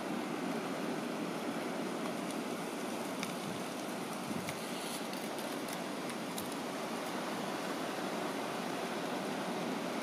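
Steady wind rushing over the microphone and through the brush and dry leaves, with a few faint ticks about two to six seconds in.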